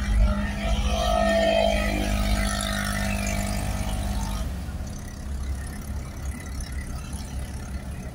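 Car engine and road noise heard from inside a moving car: a steady low rumble, fuller and louder for the first half, then quieter from about four and a half seconds in.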